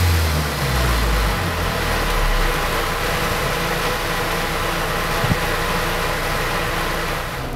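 Turbocharged VW 2.0 TSI Gen3 (EA888) inline-four running on an engine dyno: its engine speed falls over the first couple of seconds, then it settles into a steady run under a loud, even rushing noise. A single sharp click comes about five seconds in.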